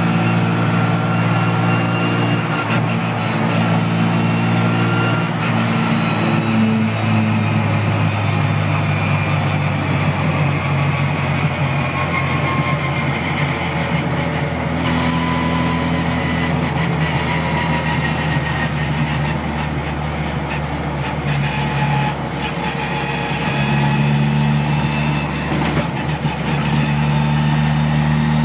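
Classic Mini's engine driving along, with the high whine of its straight-cut drop gears over the engine note, the whine sliding up and down in pitch with road speed, heard from inside the cabin. The sound eases briefly about three-quarters of the way through.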